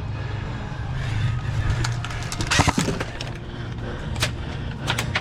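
Airsoft gunfire: a quick cluster of sharp cracks about two and a half seconds in, a single crack a little later and a few more near the end, over a steady low rumble.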